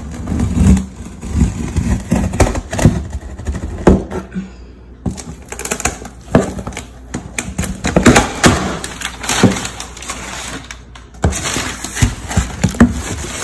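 Knife blade slitting clear packing tape along the seam of a cardboard box, closely miked: a run of irregular scrapes and clicks of the blade on tape and cardboard, with a short break about five seconds in.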